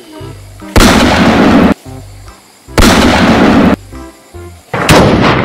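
Gunfire sound effect for a toy Uzi: three loud bursts, each about a second long and about two seconds apart, over background music.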